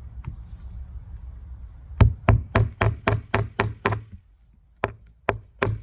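Hammer driving nails into wood: a quick run of about eight strikes, about four a second, starting about two seconds in, then a short pause and three more spaced strikes near the end.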